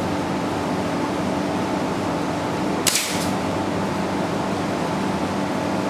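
Steady mechanical hum, with one sharp crack about three seconds in and a lighter click just after it: a single airsoft rifle shot.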